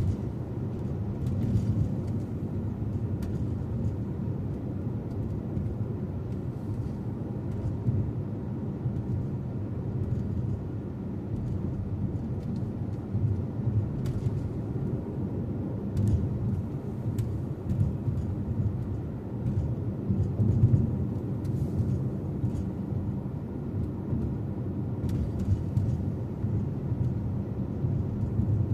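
Car driving steadily: a continuous low rumble of road and engine noise, heard from inside the vehicle, with a few faint clicks.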